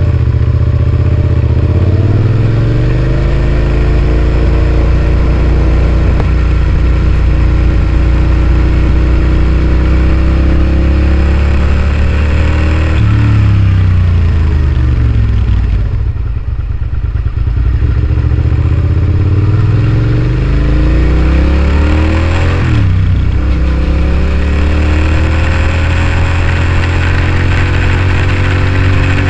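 Suzuki SV650S V-twin engine through an aftermarket Scorpion exhaust, riding off and accelerating: the pitch climbs as the revs rise and drops sharply at gear changes about halfway and two-thirds through. In between, the throttle eases off and the engine falls to a lower, quieter note before pulling hard again.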